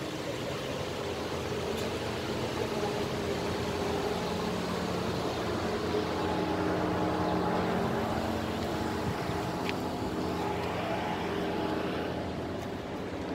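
A steady machine hum with several held tones, growing louder toward the middle and fading near the end.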